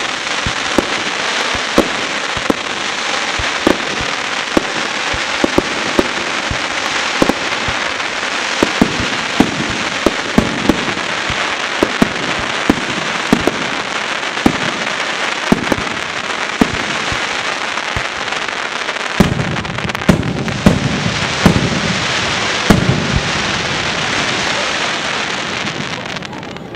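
Fireworks display: a dense, continuous crackle and hiss with frequent sharp bangs of bursting shells. Heavier, deeper booms come in about two-thirds of the way through, and the crackle dies down near the end.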